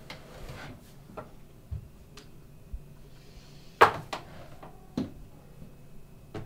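Scattered light clicks and knocks of a person handling things at a desk, one sharp knock a little over halfway through being the loudest.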